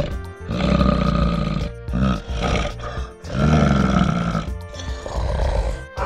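A bear growling: several long, rough growls of about a second each, over background music.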